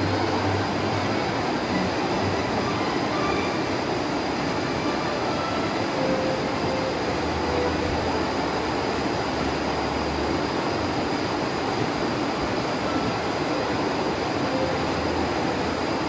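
Fast-flowing stream rushing over rocks in shallow rapids: a steady, loud wash of white water.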